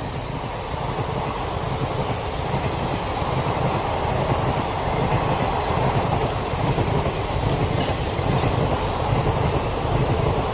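Diesel-hauled passenger train running past, a steady rumble and clatter of wheels on the rails that grows a little louder over the first few seconds.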